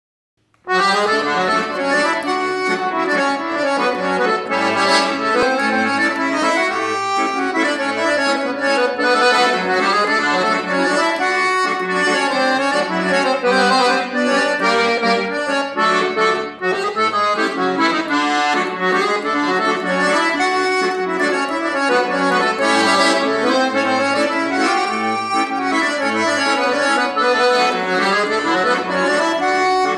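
Paolo Soprani piano accordion played solo: a samba tune with the melody on the right-hand keys over a regular pulsing bass, starting just under a second in.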